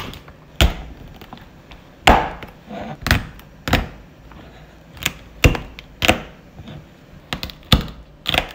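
Kitchen knife cutting the legs off a raw snow crab and striking a wooden cutting board: about ten sharp knocks, unevenly spaced.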